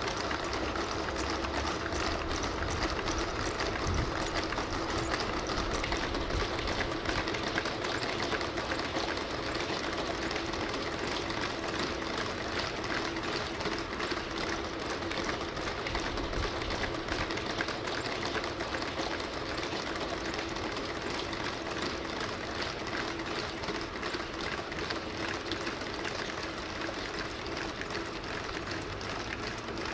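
A team of Boston Dynamics SpotPower quadruped robots walking in harness while hauling a box truck: a rapid, continuous clatter of many robot feet and joints, over a steady electric motor whine.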